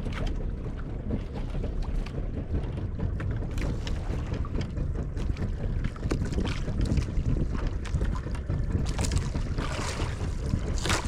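Wind buffeting the microphone aboard a small fishing boat at sea: a steady low rumble, with a couple of louder rushing surges near the end.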